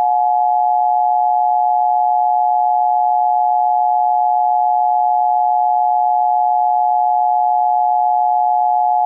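Emergency alert attention tone: two steady tones sounding together without a break, loud and unchanging.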